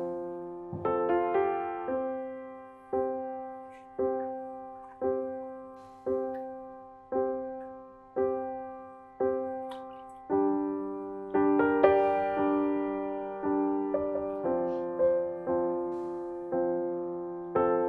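Background piano music: soft chords struck about once a second, each dying away before the next.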